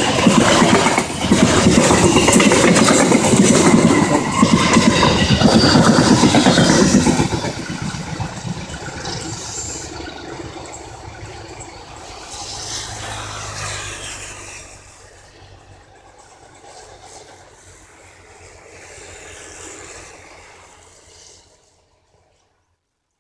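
A train rolls past close by, its wheels running loud over the rails for about seven seconds. The sound then fades steadily as the train moves away and cuts off suddenly near the end.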